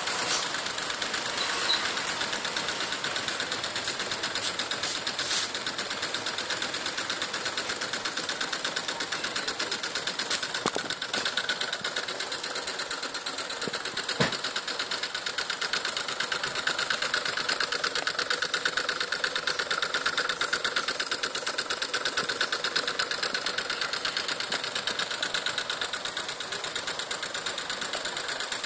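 Homemade drink-can Stirling engine running steadily, its crank and linkage clattering in a fast, even rhythm as it drives a small generator.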